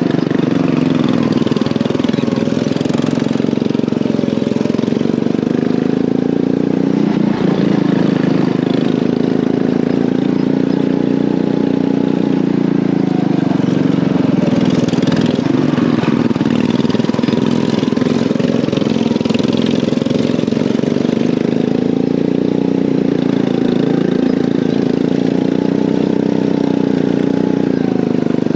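Go-kart engine running hard right behind the driver, its pitch rising and falling again and again as the throttle is opened and eased through the laps.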